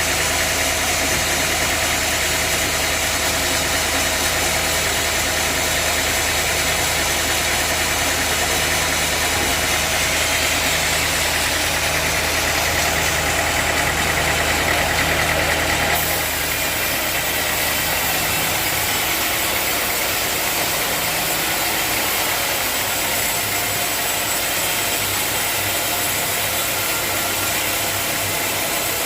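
A sawmill running as it saws a mahogany log: a steady engine hum under a dense, hissing saw noise. The sound changes abruptly about halfway through, when the low engine tones drop away and the hiss shifts.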